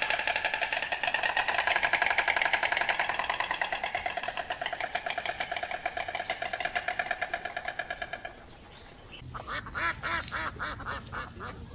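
An animal calling: one long, fast-pulsed, quack-like call lasting about eight seconds. After a short pause comes a run of shorter calls, about four a second.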